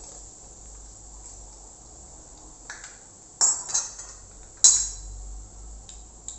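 Masala vadas frying in hot coconut oil with a steady high hiss, while a metal spoon scoops them out, knocking and clinking against the pan a few times in the middle, the loudest clink a little past halfway.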